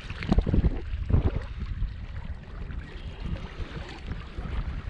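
Hooked catfish splashing at the water's surface close to the bank as it is reeled in, with a few louder bursts in the first second and a half. Wind rumbles low on the microphone throughout.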